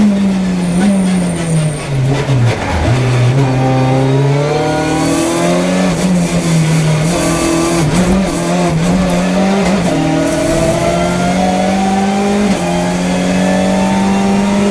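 Hyundai i30 N TCR race car's turbocharged four-cylinder engine, heard from inside the cockpit: the revs fall in steps as the driver brakes and downshifts. The engine then pulls hard back up through the gears, the pitch climbing and dropping at each upshift.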